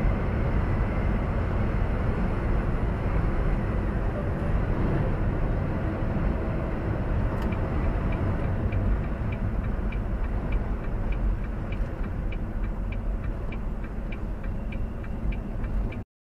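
Semi-truck cab noise at highway speed: a steady low engine and road rumble. From about halfway through, a regular light ticking comes in at about two or three ticks a second. The sound cuts off suddenly near the end.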